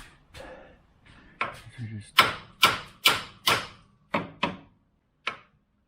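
Hammer blows on the front suspension to knock the lower ball joint loose from the steering knuckle: a run of about eight sharp strikes, roughly two a second, with the middle ones the loudest.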